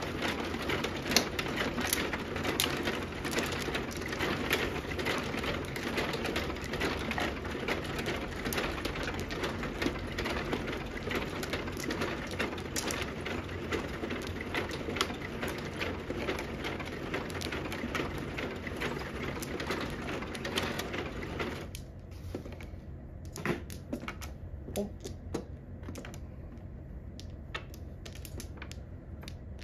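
Mahjong tiles clicking and clacking as players draw, sort and discard them on an automatic mahjong table. A dense rattle beneath the clicks cuts off suddenly about three-quarters of the way through, leaving only sparse, sharp tile clacks.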